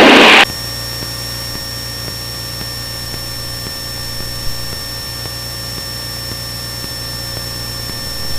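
Steady drone of a Cessna 172N's four-cylinder piston engine and propeller in cruise flight, heard inside the cabin, with a constant thin high-pitched whine over it.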